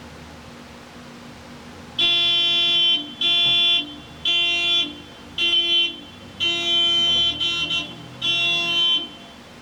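Vehicle horn honked in about seven short blasts, starting about two seconds in: impatient honking by a driver held up in a blocked drive-through lane.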